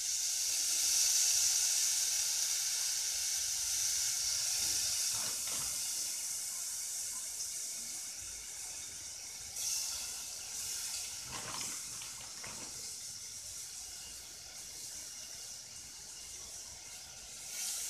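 Broccoli florets sizzling in hot olive oil in a saucepan, loudest about a second in and slowly dying down, with a few faint clicks.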